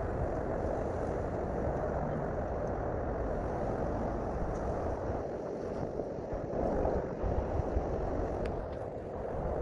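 Sped-up outdoor field recording: a steady, noisy rush of ambience with low rumble, and a few faint clicks near the end.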